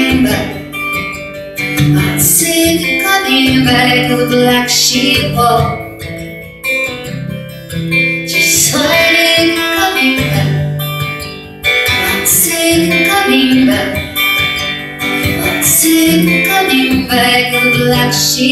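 Acoustic guitar strummed, chord after chord, in an instrumental passage of a song played live.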